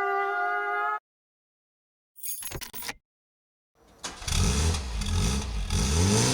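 A held sung note cuts off about a second in, and a brief noisy burst follows. From about four seconds an engine starts up and revs, its pitch rising and falling.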